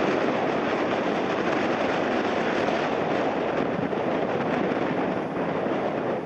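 Steady, loud jet airliner engine noise mixed with strong wind buffeting the microphone.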